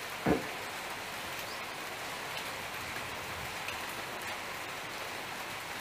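A steady, even hiss of background noise, with one brief short sound about a third of a second in.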